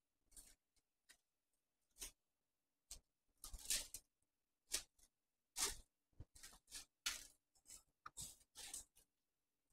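Short, irregular rustles and scrapes of flower stems being handled and pushed in around the edge of a rose bouquet, about a dozen in a row, some louder than others.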